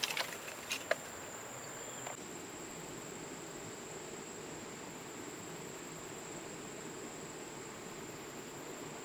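Steady high-pitched shrill of insects in a jungle chorus, with a few sharp clicks or knocks in the first second.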